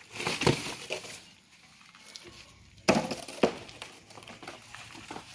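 Bamboo slats and rubble clattering as workers clear a collapsed earth embankment. There are sharp knocks in two short bursts, one at the start and another about three seconds in.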